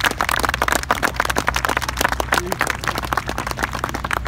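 Crowd applauding, many hands clapping quickly and densely, over a steady low rumble.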